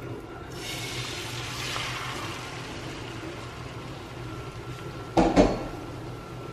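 Beaten eggs sizzling in a pan of melted butter, the steady sizzle starting about half a second in. A brief loud clatter comes about five seconds in.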